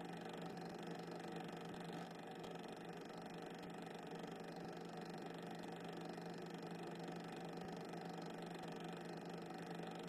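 Steady low hum with a faint hiss, unchanging throughout and without any distinct events: the background noise of a soundtrack laid under silent cine film.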